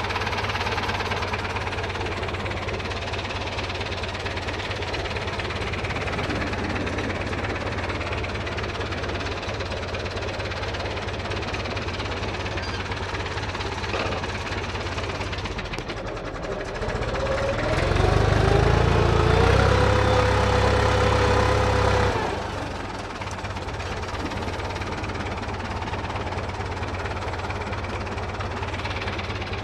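IMT 558 tractor's diesel engine running steadily. A little past halfway it gets louder, with a whine that rises in pitch and then holds for about five seconds before dropping back suddenly to the steady running.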